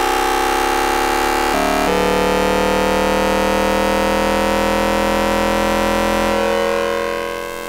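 Traction inverter noise of a Hanshin 5500 series electric train picked up by a radio in the motor car, heard as a chord of electronic whining tones that slowly rise in pitch as the train accelerates. A tone at the inverter's fundamental frequency has been added in editing. About one and a half seconds in, the tones jump suddenly to new pitches as the inverter changes mode. Near the end the sound fades and cuts off.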